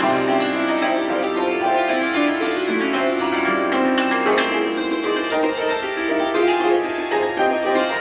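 Cimbalom playing a fast, dense passage of struck-string notes, with rapid tremolo rolls on sustained pitches.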